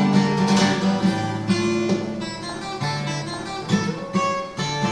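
Instrumental song introduction played on a plucked acoustic guitar, with notes and bass lines changing every second or so.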